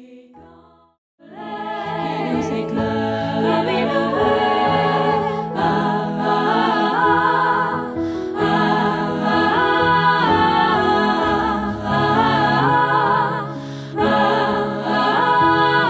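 Four-part SATB choir singing a cappella in harmony, coming in loudly about a second in after a brief near-silent pause and holding sustained, moving chords.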